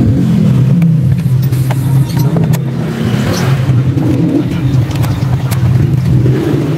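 A steady, loud low motor drone, with scattered light clicks from a screwdriver working the screws of a scooter's plastic air filter cover.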